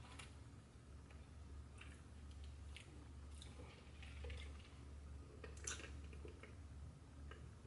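Faint chewing and small mouth clicks of people eating, scattered over a low steady hum.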